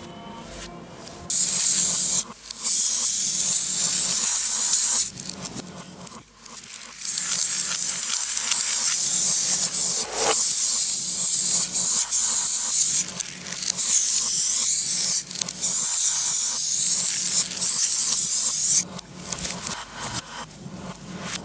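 Spray paint hissing out of a spray can in long bursts of a few seconds each, stopping and starting again after short pauses.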